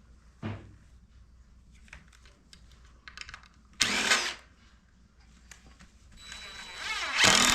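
Power drill: a short burst about four seconds in, then the motor spinning up near the end into a loud steady run, with light clicks and taps of handling in between.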